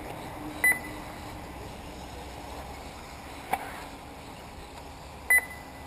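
Short, high electronic beeps of an RC race lap-counting system, one about a second in and another near the end, over a steady hiss. A single sharp knock comes in between.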